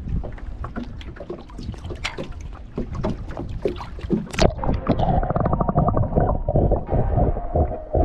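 Wind and choppy water slapping at a GoPro's microphone as it is lowered to the river surface. A splash about four and a half seconds in marks the moment it goes under. After that the sound turns muffled and throbbing, with a steady hum heard through the camera underwater.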